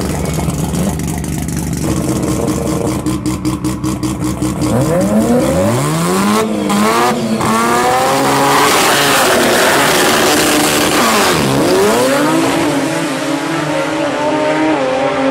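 Drag race car engine idling, then blipped in quick, even pulses before revving up hard with a sharply rising pitch as the car launches. The pitch dips briefly about eleven seconds in and climbs again, then holds high.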